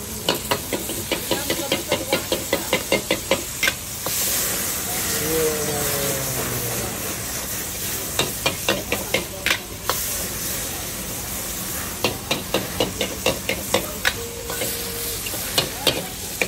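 A metal spatula clanks rapidly against a wok, about five strikes a second, over steady sizzling. About four seconds in the clanking stops and a louder hiss rises as the wok flares up in flames. The quick clanking of stir-frying then starts again in several runs.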